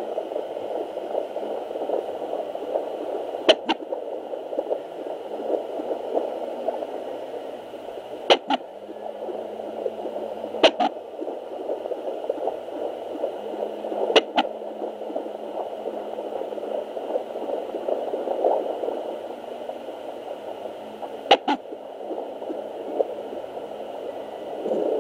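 An unborn baby's hiccups at 36 weeks' gestation: five sharp clicks a few seconds apart over a steady whooshing hiss.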